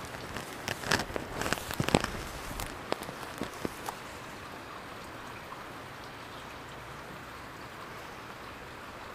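Scattered sharp clicks and taps from a baitcasting rod and reel being handled during a cast and retrieve in the first few seconds, then an even, steady hiss.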